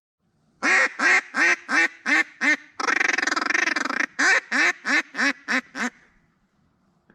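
A duck call blown in a mallard-hen routine. About six loud quacks come first, then a fast feeding chatter lasting over a second, then about six more quacks that fade toward the end.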